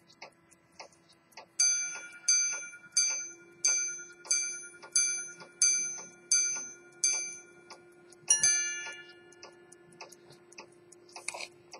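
Swiss quarter-repeater pocket watch striking on its gongs: nine evenly spaced ringing hour strikes, then after a short pause one quick two-tone ding-dong for the quarter. The movement ticks faintly before and after the chime, and there is a brief handling rustle near the end.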